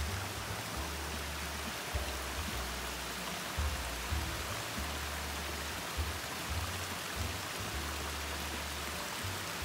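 Water running over the stone ledges of a landscaped cascade into a pond, a steady rushing hiss, with background music whose low bass notes come and go under it.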